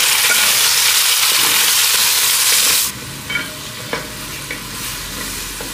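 Onions, garlic, ginger and tomatoes sizzling in hot ghee in a hammered copper pot, stirred with a wooden spatula. The sizzle drops sharply about three seconds in, leaving a quieter hiss with a few knocks of the spatula against the pot.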